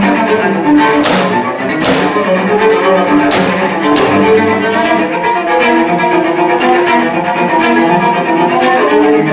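Solo cello playing, with quickly changing bowed notes and several sharp, accented strokes in the first few seconds.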